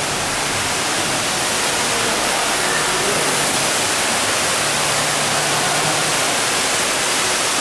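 Steady, even rush of falling water from the Cloud Forest conservatory's large indoor waterfall.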